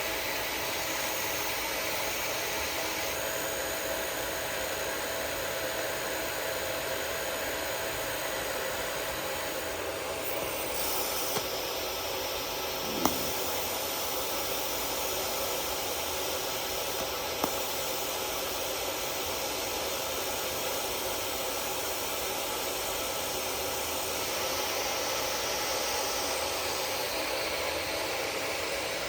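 Steady hissing noise, with a few short sharp clicks in the middle.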